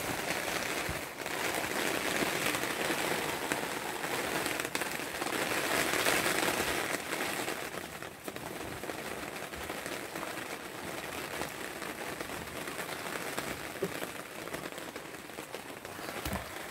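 Rain falling hard on a tent's fabric, heard from inside the tent as a steady, dense hiss of drops.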